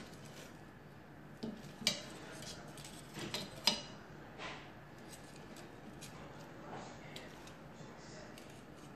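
A few light clicks and taps, the loudest near the middle, as stiff dried fish are handled on a stainless steel platter.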